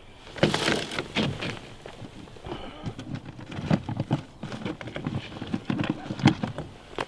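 Handling noise from hands working fishing line and tackle: rustling and a string of light, irregular knocks and clicks, with the sharpest knock about six seconds in.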